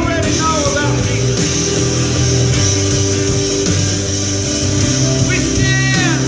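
Worship band music with guitar over long, sustained chords, with a few gliding notes near the end.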